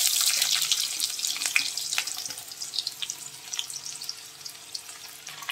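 Sliced onions sizzling in hot mustard oil with cumin and garlic, with scattered crackles; the sizzle is loudest at first, just after the onions go in, and slowly dies down.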